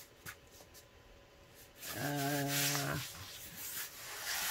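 Diamond painting canvas and its paper cover rustling and crinkling as they are turned over and smoothed flat by hand, loudest about two seconds in and again near the end. About two seconds in, a low steady hum lasts about a second.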